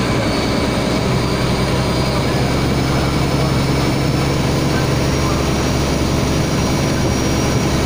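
A boat's engine running steadily with a low hum, over a constant rush of wind and water noise.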